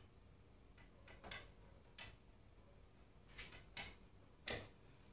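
A handful of faint, scattered clicks and light knocks, about five, the loudest about four and a half seconds in, over a quiet background.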